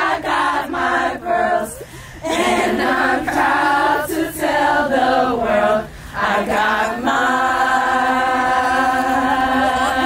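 A group of women singing a sorority chant together. The phrases are separated by short breaks about two and six seconds in, and from about seven seconds on they hold one long note.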